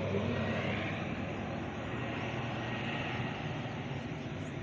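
Helicopter flying nearby: a steady engine and rotor hum that slowly fades.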